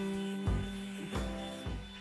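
Background music: plucked notes over a held tone, with a new note struck about every half second.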